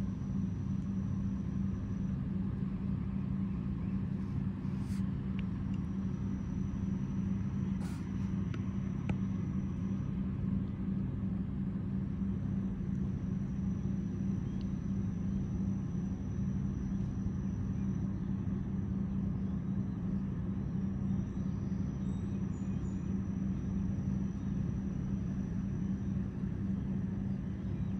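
Steady low drone of a river towboat's diesel engines pushing a string of barges, unchanging throughout. A faint thin high tone breaks in and out over it.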